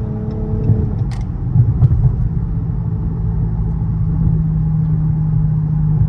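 Dodge Charger GT heard from inside the cabin at highway speed while slowing from about 70 mph: a steady low rumble of tyres, road and its V6 engine.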